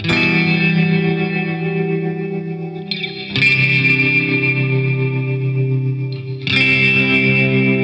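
Background music: an electric guitar with effects plays held chords that change about every three seconds.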